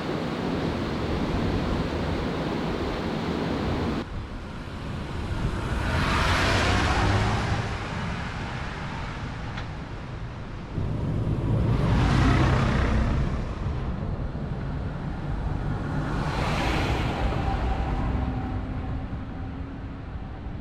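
Vehicles driving past one after another on a road, three swells of engine and tyre noise that rise and fade, over a steady rumble of wind and road noise.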